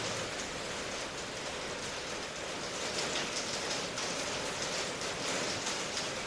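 Steady rainfall, an even hiss of many drops with faint individual drop patters.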